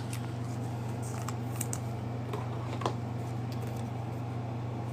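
Trading cards being handled and flipped through by hand: a few light, scattered clicks, one a little sharper about three seconds in, over a steady low electrical hum.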